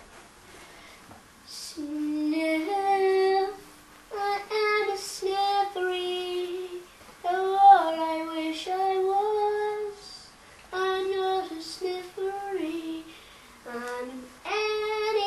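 A child singing a song unaccompanied, starting about two seconds in, in short sustained phrases separated by brief pauses.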